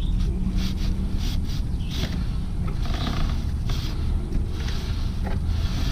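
A stiff plastic chain brush scrubbing a motorcycle's drive chain (Suzuki GSX-R600) in short, repeated scratchy strokes, over a steady low rumble of background noise.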